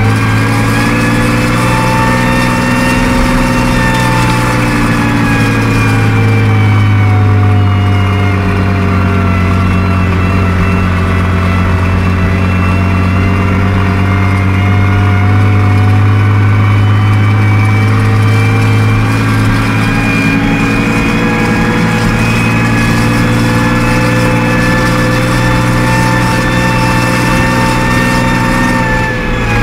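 Fiat 1180 DTH tractor's six-cylinder diesel engine running steadily under load, heard from inside the cab while pushing snow with a front-loader V-plow. Its pitch sags for several seconds about a third of the way through, then recovers.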